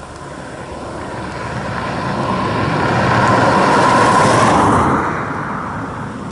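An aircraft passing overhead, growing louder to a peak about four seconds in and then fading away.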